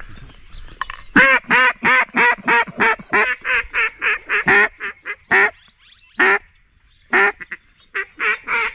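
Mallard duck call blown by a hunter: a fast run of loud, evenly spaced quacks, about three a second, then single quacks about a second apart and a new run starting near the end.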